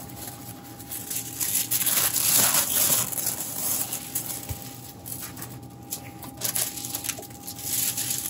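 Sheets of tissue paper rustling and crinkling in irregular bursts as they are handled and folded into a box.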